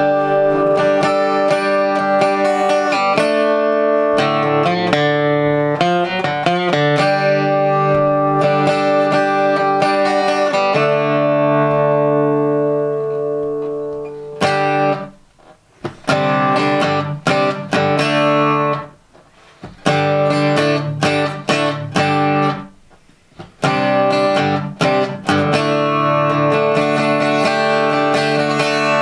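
Acoustic guitar being strummed in chords. About eleven seconds in, one chord is left ringing and slowly fades, and later the playing breaks off briefly a few times between phrases.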